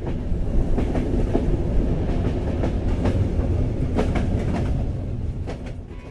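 Train running on rails: a steady low rumble with the clack of wheels over rail joints, fading out near the end.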